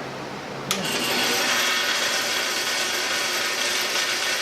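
Band saw switched on with a click less than a second in, then running steadily with a thin high whine, its blade running free on the newly fitted upper-wheel tire.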